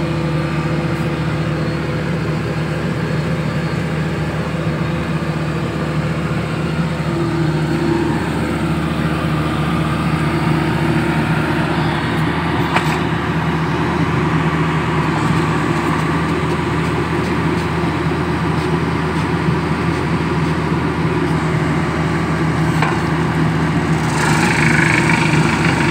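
Tractor-mounted horizontal directional drilling rig running: the engine drones steadily while the hydraulic drill head drives the drill rod into the ground. A couple of sharp clicks come partway through, and near the end it grows a little louder as a higher whine joins in.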